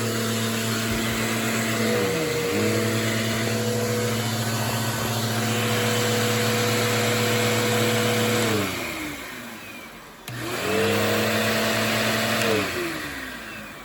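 Bissell CleanView Revolution Deluxe bagless upright vacuum running with a steady motor hum that dips briefly in pitch about two seconds in. It is switched off and winds down with a falling pitch, is switched back on, spinning up quickly, and is shut off again near the end, winding down.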